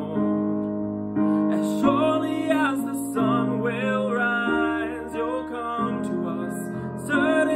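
A slow contemporary worship song: strummed acoustic guitar chords with a sung melody over them.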